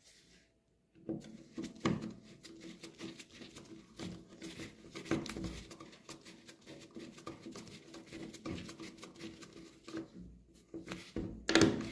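Screwdriver turning a steel screw into an air rifle's wooden stock: a dense run of small clicks and metal-on-metal scraping that starts about a second in, with a few louder clicks near the end.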